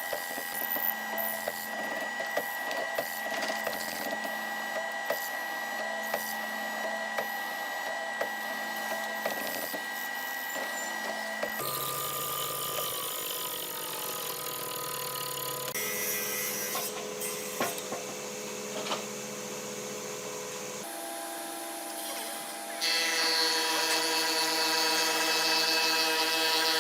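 Woodworking sounds in several short takes: many sharp clicks and strokes of tools on wood over a steady hum, then, near the end, a power tool running steadily and louder.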